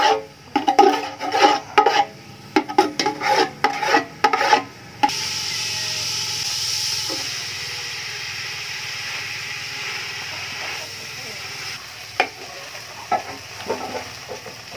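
A metal ladle scraping around the inside of a large metal cooking pot in quick repeated strokes, about two a second, for the first five seconds. Then a steady sizzling hiss from the pot over the wood fire, with a few knocks of the ladle against the pot near the end.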